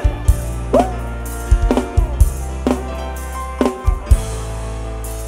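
Live band playing an instrumental passage: drum kit with kick and snare hits over long held bass notes, and a lead line of short notes that bend up in pitch and fall back.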